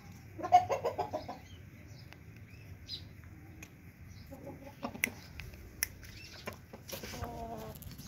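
Aseel chickens clucking: a loud burst of rapid clucks about half a second in, then softer runs of clucks later, with a few sharp clicks near the middle.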